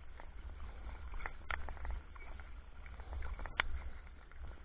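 Kayak paddling with a wooden Greenland paddle: irregular small splashes and drips of water, a few sharp ticks, over a low wind rumble on the microphone.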